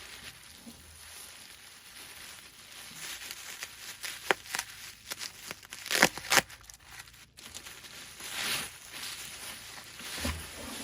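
Packing material being pulled and torn out of a shipping box: rustling and crinkling, with a few sharp cracks midway.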